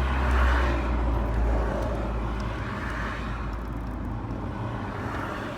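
A low, steady rumble with a faint hum running through it, loudest for the first couple of seconds and then easing off.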